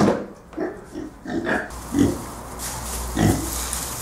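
Piglets grunting: a string of short grunts, several in quick succession in the first two seconds and another a little after three seconds.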